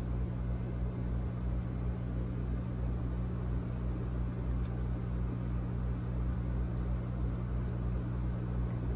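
A steady low hum over a faint hiss, unchanging throughout.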